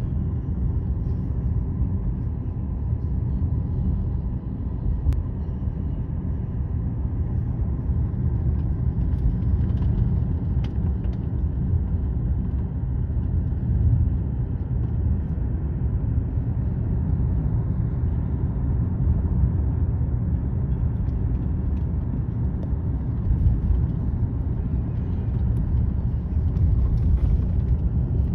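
Steady low rumble of a car on the move, with no distinct knocks, horn or other events.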